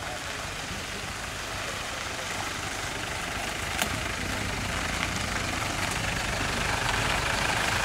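Pickup truck's engine running as it drives slowly closer, growing steadily louder. There is a single sharp click about four seconds in.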